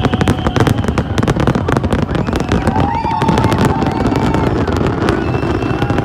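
Fireworks display: a dense, rapid run of bangs and crackles that keeps going without pause, with a few faint whistling glides among them.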